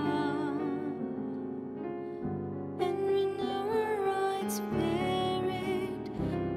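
Slow, gentle background music: sustained keyboard notes with a wavering melody line over held chords.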